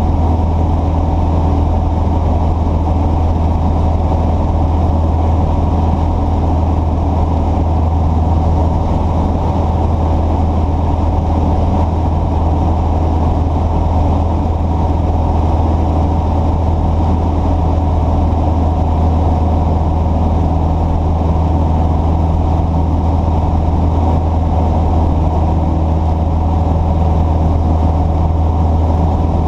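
An engine running steadily with a low, constant hum and a mechanical whir over it, holding the same level throughout.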